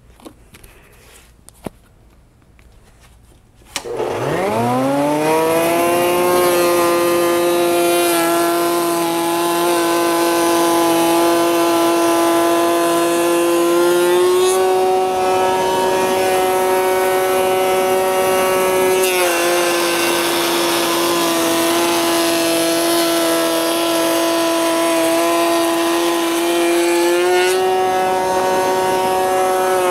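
Table-mounted wood router switched on about four seconds in, spinning up with a rising whine, then running steadily as it cuts a raised-panel profile in a curly maple panel with a large carbide-insert panel-raising bit. Its pitch steps down and back up a few times during the cut.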